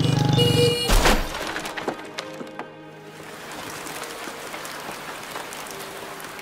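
A motorcycle engine grows louder as it comes close, a short squeal, then a crash about a second in as it strikes a wheelchair, followed by scattered clattering of debris. Soft background music runs underneath and carries on after the crash.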